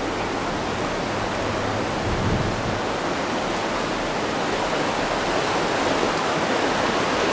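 Shallow mountain river rushing over rocks and small rapids, a steady, even wash of water noise.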